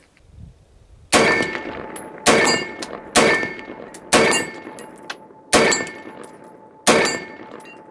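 Six semi-automatic rifle shots from an AR-15 in .223, fired about a second apart, each followed at once by the ring of a steel target plate being hit at 50 yards. The ringing fades between the shots.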